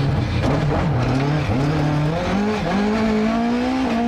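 Rally car engine pulling hard through the gears: its pitch drops briefly at an upshift about one and a half seconds in and again about a second later, climbs after each, then holds steady near the end.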